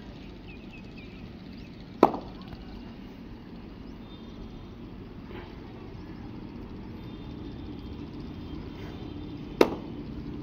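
Two sharp hand slaps on bare skin, one about two seconds in and another near the end, over a steady low background.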